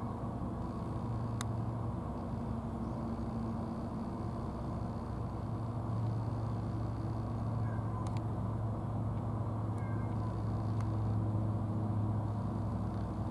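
Domestic cats giving a few short, faint meows, mostly in the second half, over a steady low engine-like hum.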